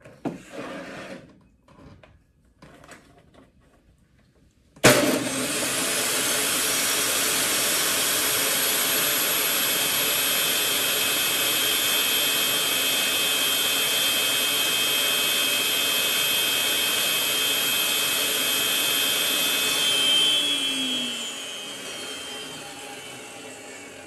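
A few light knocks, then an electric shop-tool motor starts suddenly about five seconds in and runs steadily with a high whine. Near the end it is switched off and winds down, the whine falling in pitch and fading.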